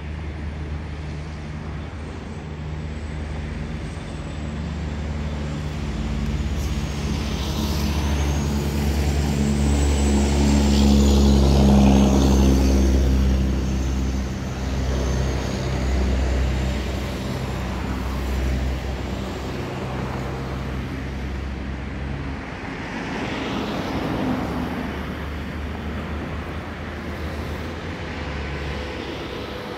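Road traffic: a steady engine hum with vehicles going by, swelling to its loudest about twelve seconds in and again more faintly later on.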